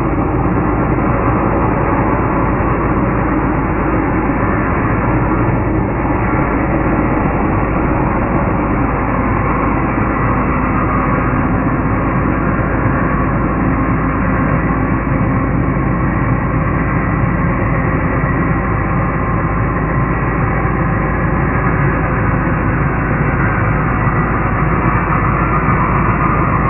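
Evolution 18V cordless wet and dry vacuum running steadily, a constant motor and airflow noise with no changes in speed.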